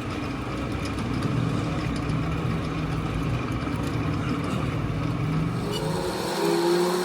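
An engine running steadily with a low rumble. About six seconds in the rumble drops away and a higher motor whine starts, rising in pitch.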